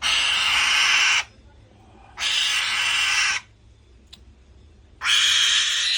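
A captive bird of prey giving three harsh, hissing calls, each about a second long, with short pauses between.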